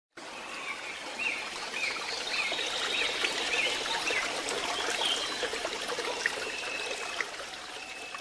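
Water trickling in a flowing stream, with a bird chirping: a run of five or six short notes about twice a second, then a few longer whistled notes.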